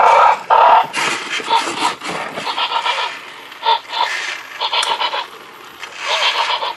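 Zoomer Dino robotic toy dinosaur making a string of short electronic growling dinosaur noises from its built-in speaker, the loudest right at the start, as it walks.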